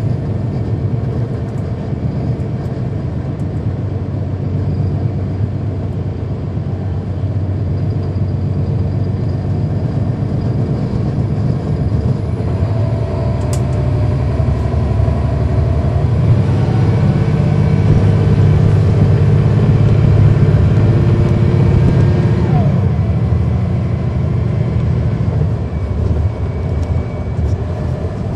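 Cummins ISL9 inline-six turbo diesel of a NABI 40-foot transit bus, heard from inside the cabin while the bus is under way. The engine runs steadily, pulls harder and grows louder about halfway through, then eases off.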